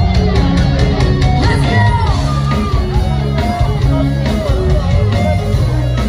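Loud rock music from a band playing live: guitar over a heavy bass line and drums.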